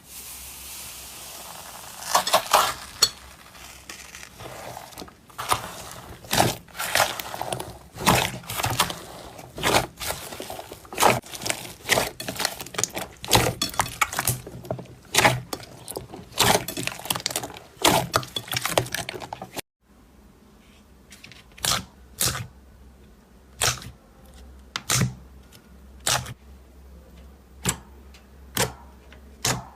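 Slime being pressed and squeezed by hand, making dense crackling and popping clicks. About two thirds through it cuts to sharper, separate pops, roughly one a second.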